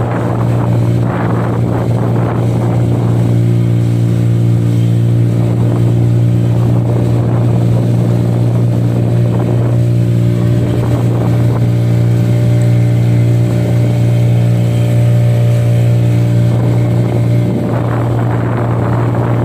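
Fishing boat's motor running steadily under way, a constant low drone.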